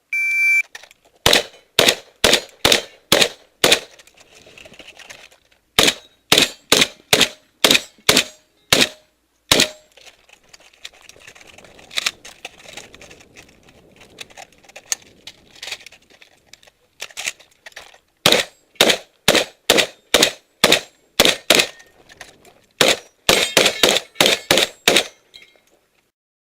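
Shot-timer start beep, then a semi-automatic shotgun fired in fast strings of about two shots a second, with short pauses between strings and a few single shots in between.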